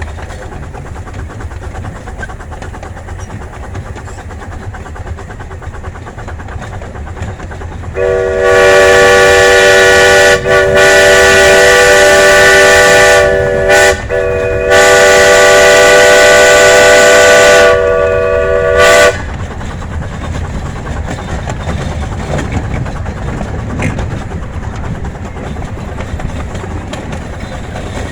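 Steam locomotive's chime whistle sounding a long chord of several notes for about eleven seconds, broken by two brief gaps, over the steady rumble of the miniature train running on the rails.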